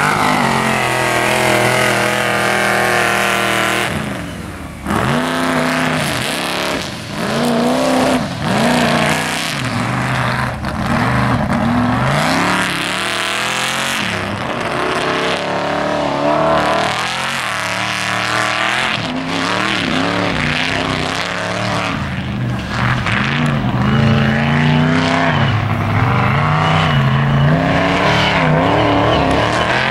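Mega truck's engine revving hard, its pitch surging up and down again and again as the throttle is worked.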